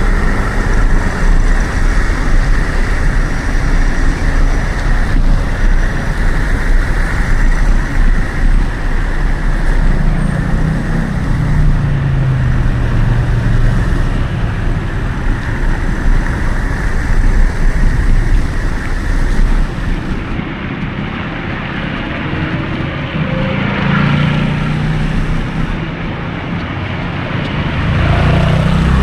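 Road traffic heard from a bicycle while riding, with wind buffeting the microphone; a low engine hum of passing vehicles swells about ten seconds in and again later on.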